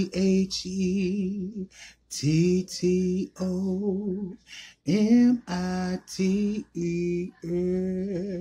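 A man singing a slow, unaccompanied goodbye tune: about ten drawn-out notes with vibrato, separated by short breaths.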